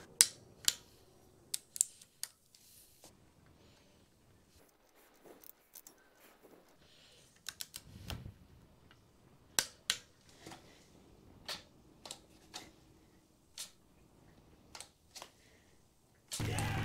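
Scattered sharp clicks from a ratchet torque wrench tightening the pad bolts of a bicycle rim brake caliper. Music starts near the end.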